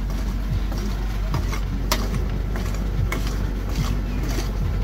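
Metal spatulas scraping and clicking against the steel cold plate of a rolled ice cream machine as the frozen mixture is spread out, several sharp separate strikes over a steady low hum.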